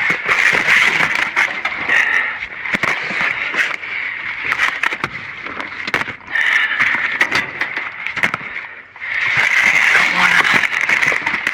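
Rustling and scraping with many scattered clicks and knocks as debris is shifted by hand, easing off briefly twice.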